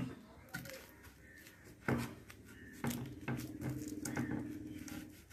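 Kitchen knife cutting a red onion on a wooden chopping board: a few separate sharp knocks of the blade on the board, the loudest about two seconds in, with quiet handling between.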